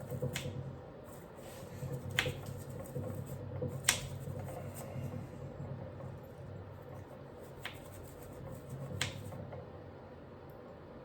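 A handful of scattered sharp clicks and taps, about five over the stretch, from hand work with a brush and tools on the metal of a sewing machine being cleaned of old grease, over a faint low hum.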